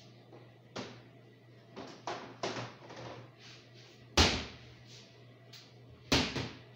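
Sharp knocks and thuds of things being handled in a kitchen, a few light ones and then two loud bangs, about four seconds in and again near the end, over a steady low hum.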